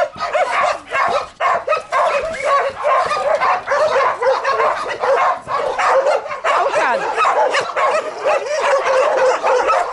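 Several dogs barking at once, their high barks overlapping in a continuous chorus with no break.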